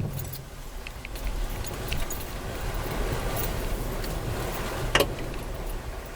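Land Rover Freelander 2 running over rough quarry ground, a steady low rumble with scattered rattles and clicks and one sharp knock about five seconds in.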